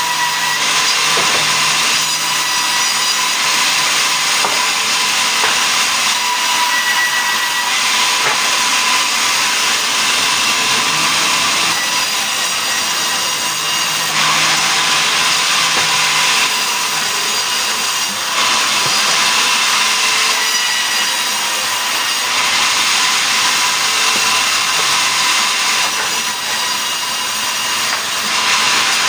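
Sawmill saw cutting mahogany into planks: a loud, steady machine noise that turns harsher for stretches of a few seconds at a time as the blade works through the wood.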